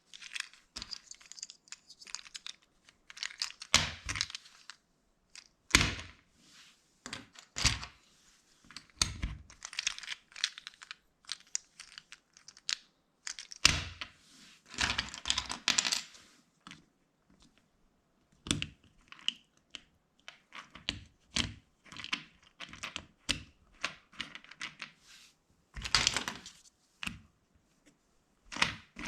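Plastic LEGO bricks and parts being handled and snapped together: irregular sharp clicks and taps mixed with short rustles and rattles of loose pieces.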